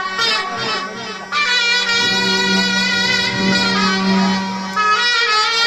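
Instrumental Egyptian folk wedding music: a nasal, reed-like wind melody winding over a steady low drone, growing louder about a second and a half in.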